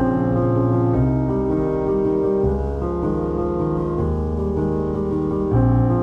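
Background piano music: sustained chords changing about once a second over a low bass line.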